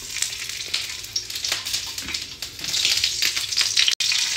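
Steamed chicken leg pieces sizzling and crackling in hot oil on a tawa griddle as they are laid down. The sizzle grows louder about two-thirds of the way in, after the second piece goes on.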